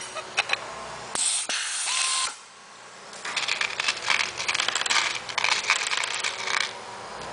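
Pneumatic-hydraulic spin-pull rivnut tool cycling: a click, a burst of air hiss about a second in, then a run of rapid clicking for about three and a half seconds as the air motor spins the threaded mandrel.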